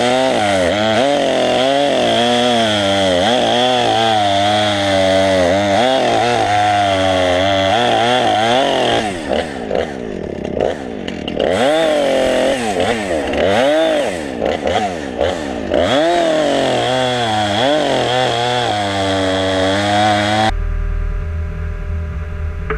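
Husqvarna 455 Rancher two-stroke chainsaw cutting through logs, its engine pitch sagging under load in each cut and rising again between cuts. It stops abruptly about 20 seconds in, giving way to a low steady engine hum.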